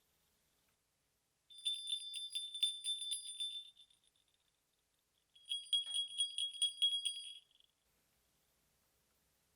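Sleigh bells shaken in two bursts of jingling, each about two seconds long, with a clear high ringing pitch; the second burst sits slightly lower in pitch.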